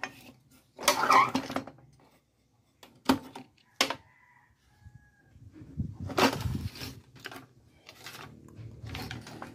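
Clatter, knocks and scraping of a CRT TV's main circuit-board chassis being slid out of its plastic cabinet rails and lifted by hand. There is a sharp burst about a second in, two knocks around three and four seconds, and a longer scrape a couple of seconds later.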